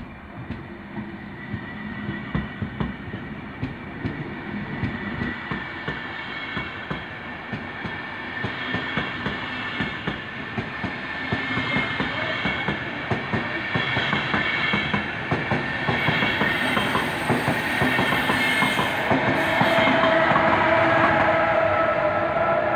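Push-pull Intercity train departing past the microphone: wheels clicking over rail joints as the coaches roll by, growing steadily louder. A whine from the electric locomotive pushing at the rear comes in near the end.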